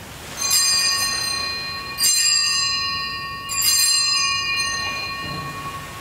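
Altar bell rung three times, about a second and a half apart, each strike ringing on and slowly fading: the bell that marks the elevation of the chalice at the consecration of the Mass.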